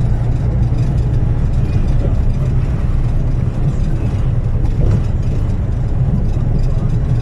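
Steady low rumble of a bus driving, heard from inside the cabin.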